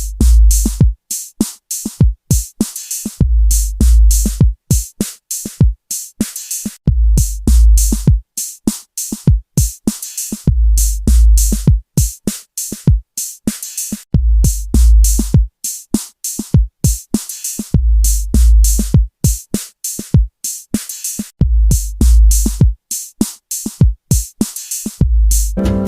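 Background music: an electronic drum beat with no vocals, rapid sharp percussion hits over a deep bass note that comes back about every four seconds.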